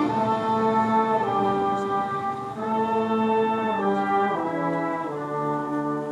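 Brass band music: a slow piece of held chords that change about every second, with a low bass line stepping down near the end.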